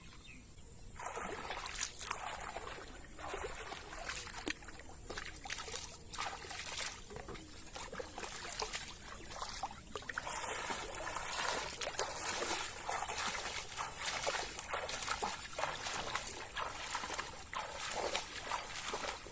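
Water sloshing, splashing and trickling in many short irregular bursts, with a faint steady high hiss behind.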